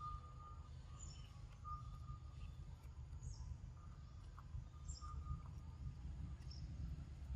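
Forest ambience: scattered faint bird chirps and short calls over a steady low rumble.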